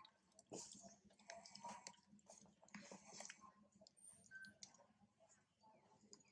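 Faint chewing of macaques eating ripe mango, with scattered small irregular clicks and crackles.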